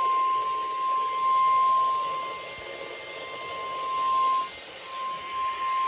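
NOAA Weather Radio 1050 Hz warning alarm tone, sent as the required weekly test: one steady high tone over radio static hiss, its level wavering. The tone drops out briefly about four and a half seconds in, then resumes.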